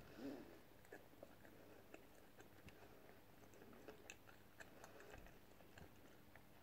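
Faint chewing: a person eating, with small wet mouth clicks scattered through an otherwise near-silent room.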